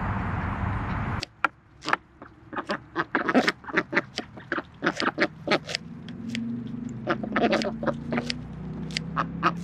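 A steady hiss for about the first second, then ducks grazing: rapid, irregular clicks and snaps of their bills pecking and tearing at grass, with soft, low duck mutters from about six seconds in.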